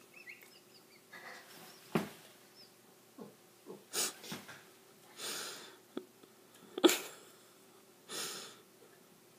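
A man breathing heavily through his nose with a wheezy note, a few breaths spaced a couple of seconds apart, with two sharp clicks, the louder one about seven seconds in.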